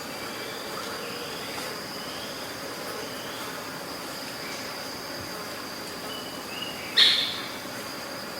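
Outdoor nature ambience: a steady high insect drone with short bird chirps scattered over it, and a single sharp click or knock about seven seconds in.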